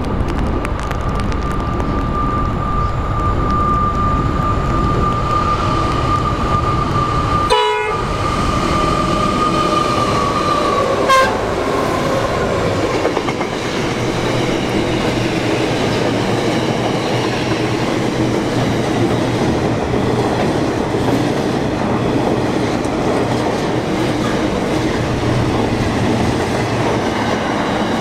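Pacific National NR class diesel-electric locomotive passing with a steady high tone that drops in pitch as it goes by, followed by the steady rumble and wheel clatter of a long train of steel-coil wagons rolling past.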